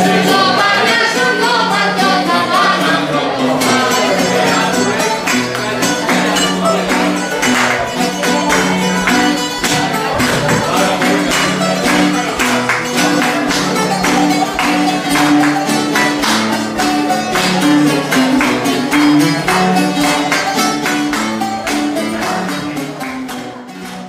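Live rebetiko band music led by a bouzouki playing a plucked melody over strummed accompaniment with a steady rhythm, fading out at the very end.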